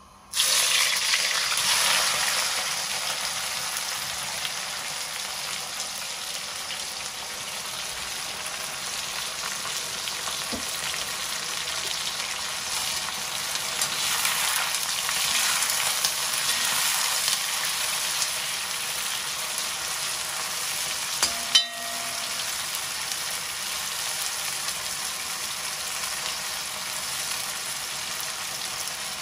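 Chopped onions dropped into hot oil for plov: a sudden loud sizzle that settles into steady frying, with one sharp knock about two-thirds of the way through.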